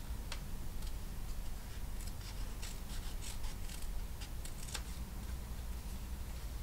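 Small sharp embroidery scissors snipping through fabric backed with paper-backed fusible web: a run of short, quick snips, thickest between about two and five seconds in.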